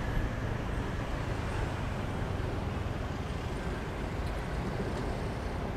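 Steady rumble of a motorbike ride through city traffic, heard from the pillion seat.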